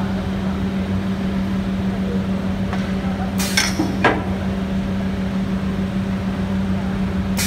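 CNC knife grinding machine running with a steady hum, with a few sharp clinks: two about halfway through and one near the end.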